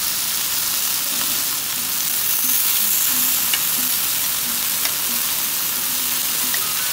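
Marinated chicken pieces sizzling steadily on a hot domed grill plate, with a few light clicks of metal tongs turning the meat.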